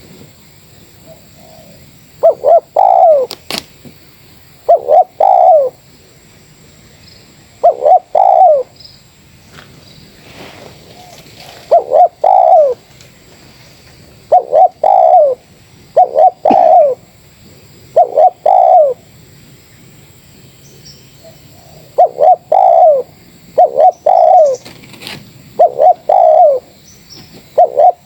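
Spotted dove (terkukur) cooing loud and close, repeating its short multi-note coo phrase every two to three seconds, with a pause of a few seconds partway through.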